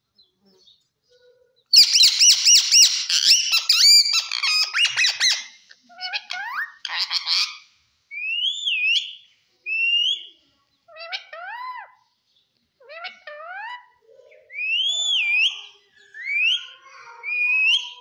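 Indian ringneck parakeet calling: about two seconds in, a loud burst of rapid, warbling high-pitched calls lasting some three seconds. Then a string of short chatters and clear whistles, most gliding upward and some rising then falling, repeated roughly every second.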